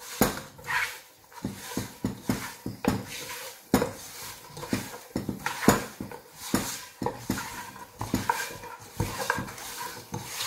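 Chicken pieces being tossed and rubbed with spice masala by hand in a non-stick cooking pot: irregular knocks and slaps of the pieces against the pot, several a second.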